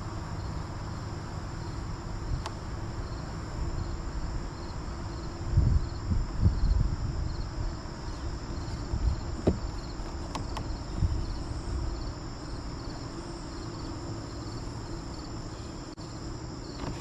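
Insects calling steadily, with high continuous trills and a regular pulsing chirp, over a low rumble with a few dull thumps about six seconds in.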